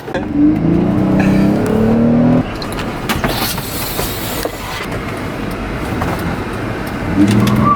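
Car driving: the engine rises in pitch for about two seconds as it accelerates, then gives way to steady road and engine noise, with another short engine rise near the end.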